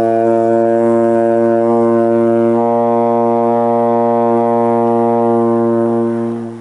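A trombone holds one low, steady note with the lips buzzing into the mouthpiece, the kind of long first note a beginner learns to sustain; it fades and stops near the end.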